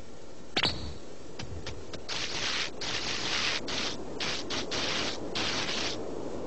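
Cartoon sound effects: a short swish about half a second in, then scraping, rubbing noises in irregular bursts of varying length.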